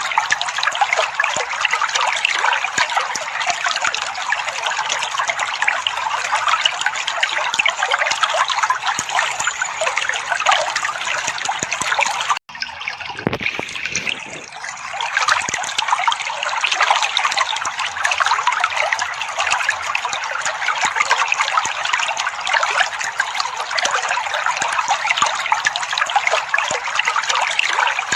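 Water trickling in a steady stream. About twelve seconds in it cuts off abruptly, comes back duller with a low gurgle for a couple of seconds, then runs on as before.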